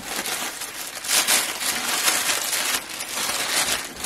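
Thin plastic wrapping crinkling and rustling in irregular bursts as a dumbbell is pulled from its cardboard box and unwrapped.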